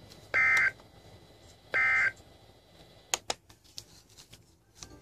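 Emergency Alert System end-of-message signal: two short, shrill digital data bursts about a second and a half apart, the last two of the three-burst sequence that closes an alert. A few sharp clicks follow about three seconds in.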